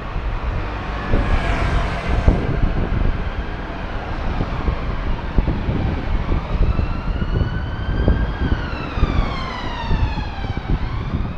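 Road traffic running past close by, with a low steady rumble of engines and tyres. About halfway in, an emergency-vehicle siren wails over it, its pitch sweeping slowly up, then down, then starting up again.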